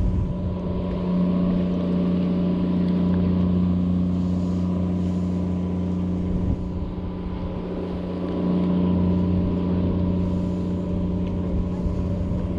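A motorboat's engine running with a steady low drone, growing a little louder twice.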